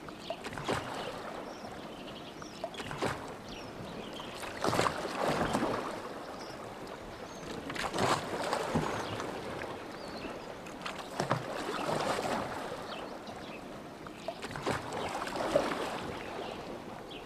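Oars of a rowboat dipping and pulling through lake water, a swell of splashing and dripping about every three to four seconds with short sharp clicks in between.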